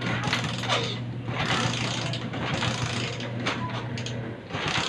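Motorcycle electric starter cranking the engine, which does not fire because the homemade immobiliser has cut the engine. The steady cranking whir stops shortly before the end.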